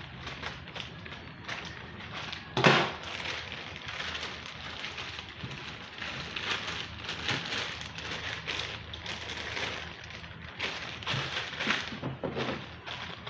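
Packaging being handled and opened: irregular crinkling, rustling and clicking, with one sharp louder knock about two and a half seconds in.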